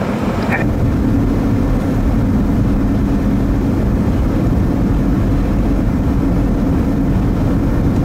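Steady low rumble of a vehicle driving on a snow-covered highway: engine and tyre noise, starting about half a second in and holding evenly to the end.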